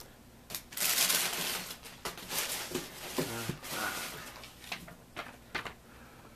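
Paper and cardboard packaging rustling and scraping in irregular bursts as items are handled inside a cardboard box, with a few sharp clicks.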